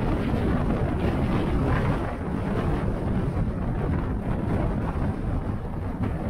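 A moving car's steady road and wind noise: a low rumble with a fainter hiss above it.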